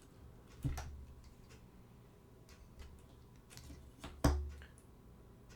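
Light clicks and knocks from a mini telescoping light stand being handled, its sections twisted and slid. There are two clear knocks, about a second in and a louder one near the end, with faint ticks between.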